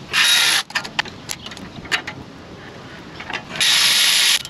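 Power ratchet driving a 10 mm triple-square bit on long extensions to spin out the axle bolts, in two short bursts, the second longer, with scattered clicks of the tool and socket between.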